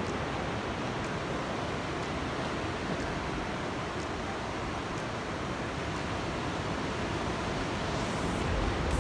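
Steady rushing of sea surf and wind, an even noise with no distinct events, the low rumble swelling slightly near the end.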